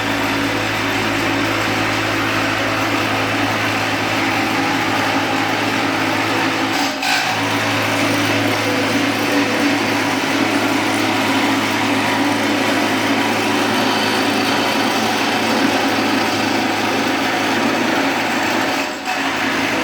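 Garage door window cutting machine running steadily: a constant motor hum under a harsh cutting noise, with two brief dips, about seven seconds in and near the end.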